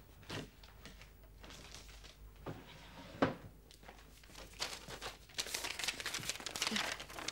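Sheet of paper rustling and crinkling as a folded letter is handled and opened, the rustling growing denser and louder over the last few seconds. Before that, a few light knocks and one sharper click as things are moved about.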